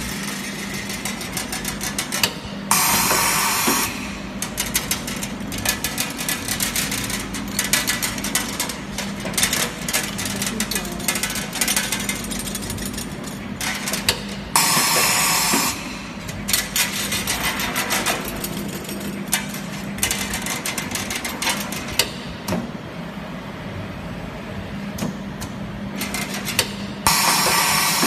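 Steel-rule die blade bending machine at work: a steady hum with rapid mechanical clicking, broken three times by a loud hiss of about a second, roughly every twelve seconds.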